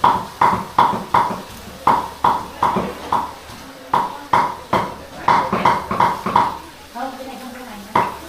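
Repeated sharp knocks, about two or three a second, each with a short ring, pausing twice. A voice is heard briefly near the end.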